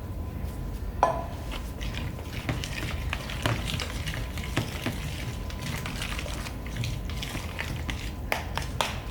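Scattered clicks and clinks of metal cans and kitchen utensils as a can of peas is opened and drained, with one sharp ringing clink about a second in.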